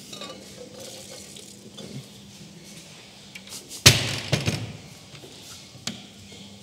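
A sharp knock of glass about four seconds in, followed by a short run of lighter clinks, as a glass coffee server is handled on the counter.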